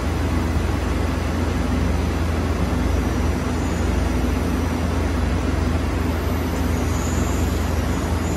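Steady low hum and noise of a Fastems automatic pallet-changer system running as its shuttle draws a machine pallet out of the machining centre, with a faint high whine near the end.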